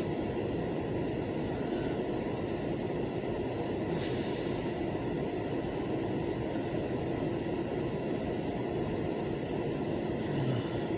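Freight train cars rolling past on the track: a steady, continuous noise of steel wheels on rail.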